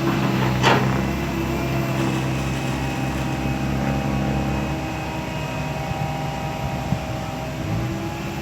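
Komatsu PC160LC hydraulic excavator's diesel engine running steadily under work, with a sharp metallic clank about a second in. The engine note eases and drops about halfway through.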